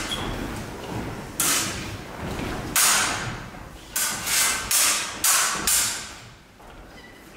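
A sabre bout on a wooden hall floor: about seven sharp scuffs and knocks from fencers' feet and training sabres meeting, with a brief echo after each, dying away near the end.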